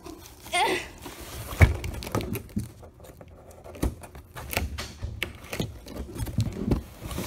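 Cardboard boxes being handled: scraping, rustling and light knocks as a cardboard box is moved about and lifted out of a packed carton, with a brief squeak about half a second in.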